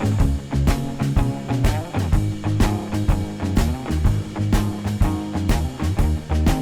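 Background music with a steady beat, guitar and bass.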